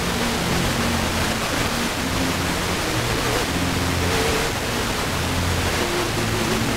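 FM radio tuned to a very weak, distant station: a steady hiss of static with faint classical music from ABC Classic FM showing through as low notes underneath. The signal is only just above the noise, carried in by auroral propagation.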